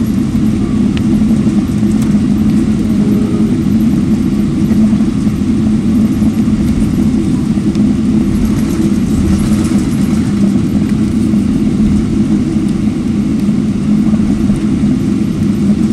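Steady cabin noise of a jet airliner taxiing, heard from a window seat: the engines running at low taxi power as a constant low hum over a rumble.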